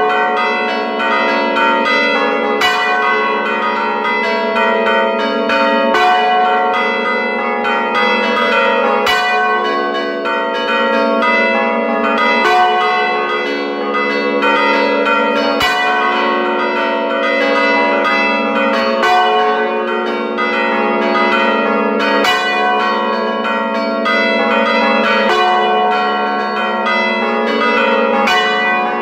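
Five bronze church bells ringing close up inside the bell chamber, their tones overlapping. One large swinging bell strikes heavily about every three seconds, while lighter, quicker strikes from the other bells, played from the keyboard, fill the gaps.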